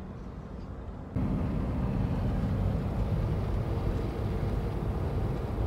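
Steady road and engine noise heard inside a moving car's cabin. About a second in it jumps suddenly to a louder, fuller rumble.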